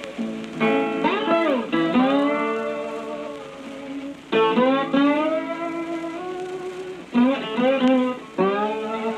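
Blues guitar played with a slide: plucked notes and phrases with gliding, bending pitches.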